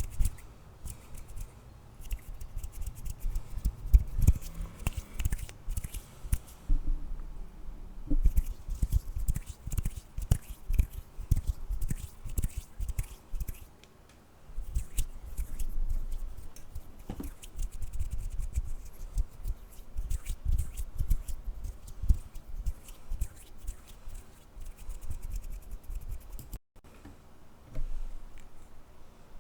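Hands tapping, rubbing and handling things close to the microphone: a dense, irregular run of small clicks and dull low knocks, with a short break about three seconds before the end.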